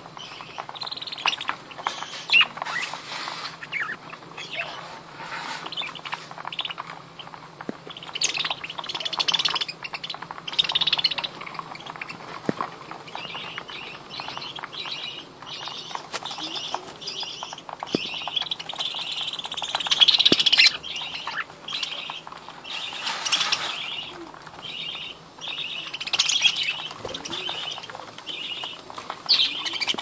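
A colony of budgerigars chattering and chirping, with many short overlapping calls; a louder burst of calls comes about twenty seconds in.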